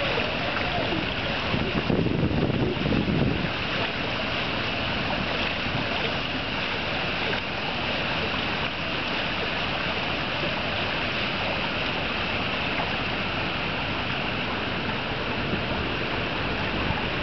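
Steady rushing wind and water noise from a breezy open pool, with wind buffeting the microphone. It swells briefly about two seconds in.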